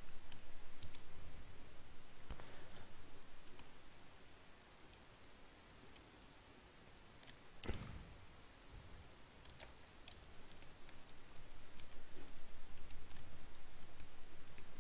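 Scattered computer mouse clicks and keyboard keystrokes at irregular intervals, one louder click about eight seconds in.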